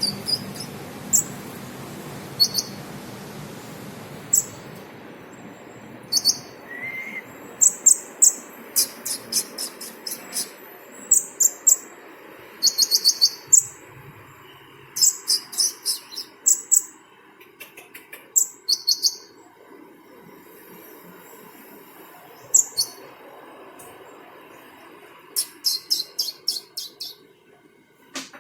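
Sunbird (Indonesian 'kolibri') singing strings of short, very high chirps in quick clusters, a cricket-like song it has learned to mimic.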